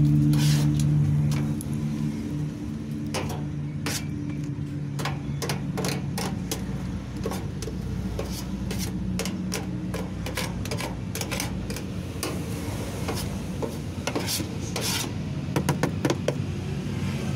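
Dust and grime being scraped and brushed off the inside of a laundry dryer's drum: a run of irregular rasping strokes, quicker and louder near the end, over a steady low hum.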